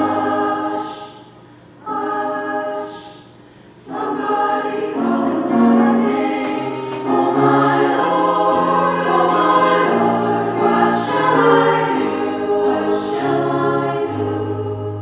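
Women's church choir singing a sacred choral piece, with two short pauses between phrases about one and three seconds in, then singing without a break.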